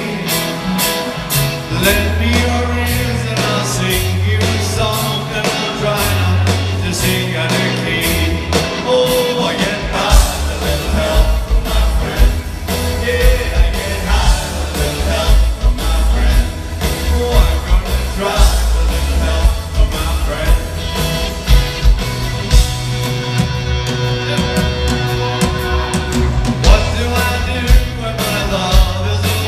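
A live rock band playing a song with a singing voice over drums and bass, recorded from the audience in a large hall. About a third of the way in the drums and bass come in harder, with regular loud beats.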